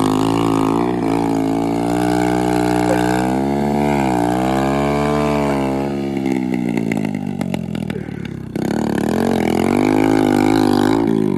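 Small motorcycle engine revving hard under load, its pitch climbing and falling as it strains to tow a second motorcycle out of deep mud on a rope. The revs sag for a couple of seconds, jump up suddenly about eight and a half seconds in, then drop away near the end.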